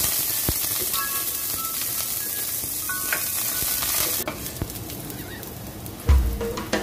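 Sliced garlic sizzling in hot oil in a nonstick wok while a spatula stirs it. The sizzle grows quieter about four seconds in, and background music comes in near the end.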